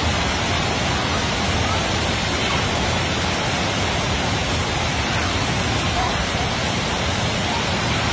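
Heavy rain falling steadily, with runoff water pouring off a roof edge close by.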